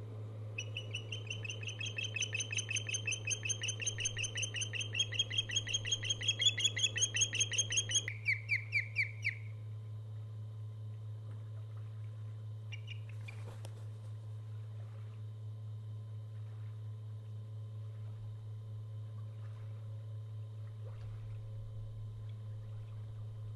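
Osprey calling: a fast run of high, whistled chirps for about nine seconds, growing louder, ending in a few slower separate notes. A steady low hum runs underneath throughout.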